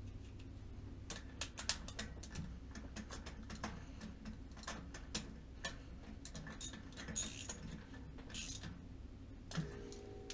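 Ratchet wrench with an extension clicking in irregular runs while turning a spark plug in a Honda D16 engine, with a couple of short rasps about seven and eight and a half seconds in.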